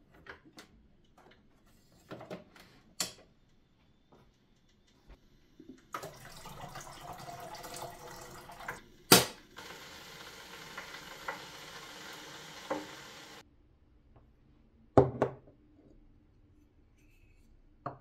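Handling a De'Longhi espresso machine: light clicks and clunks, then about seven seconds of water pouring, cut through by a sharp clack. A heavy thump comes shortly after the water stops.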